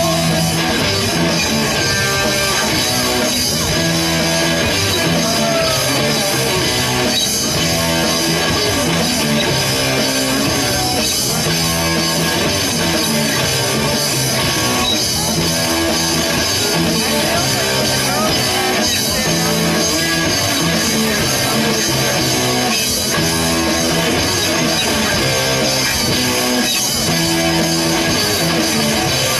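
A live amateur rock band with electric guitar and drum kit playing a song, loud and continuous, its chord pattern cycling about every four seconds.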